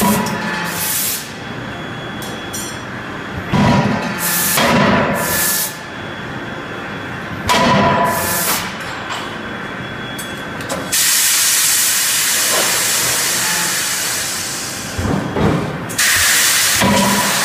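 31.5 kJ CNC closed-die forging hammer at work on a hot crankshaft blank: loud bursts of noise with hissing every few seconds. In the second half comes a long steady hiss of about five seconds.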